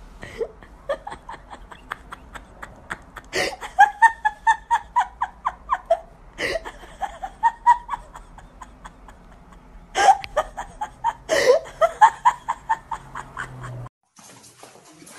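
A person laughing hard in long runs of rapid, pitched laughs, broken by a few sharp gasping bursts. It stops abruptly near the end.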